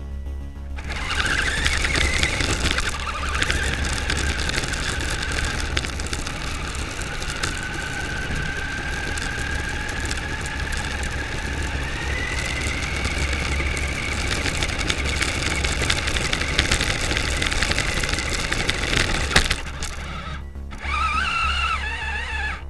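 Electric motor of a New Bright RC Corvette, heard from on board, whining as the car drives over rough tarmac, with a constant rough rattle of tyres and chassis. The whine rises and falls with speed, then holds steady at a high pitch. The rattle stops suddenly near the end, and a short burst of motor whine follows.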